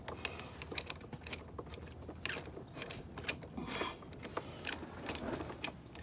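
Steel C-clamp being unscrewed by hand from a brake caliper: irregular light metallic clicks and scrapes from its turning screw.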